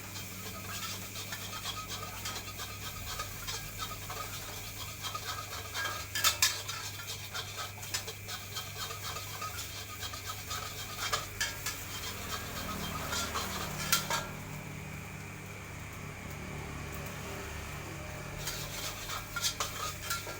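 Metal spatula scraping and clanking rapidly against a wok while stir-frying fried rice, with a few sharp louder knocks on the pan rim, about 6 and 14 seconds in. The stirring pauses for a few seconds, then resumes near the end.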